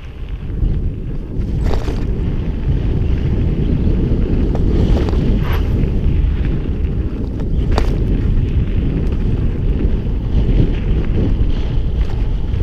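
Wind buffeting the microphone of a camera on a mountain bike, over the rumble of its 29er tyres rolling on a gravel trail, with a few sharp clicks from the bike as it rides over bumps.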